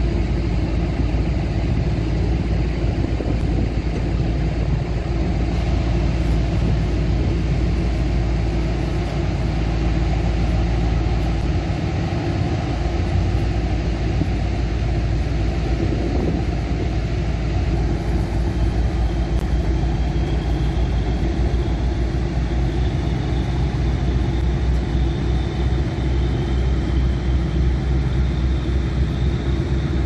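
Kometa hydrofoil's diesel engines running with a steady deep rumble as the boat moves off from the quay at low speed. A high whine comes in a little past halfway and rises slightly toward the end.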